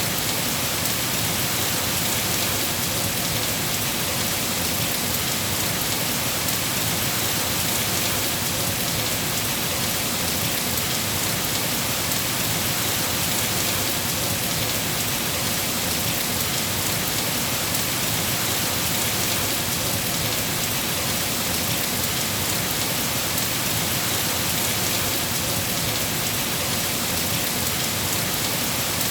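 Rain falling steadily in a rainforest: a dense, even hiss with no thunder or separate drops standing out.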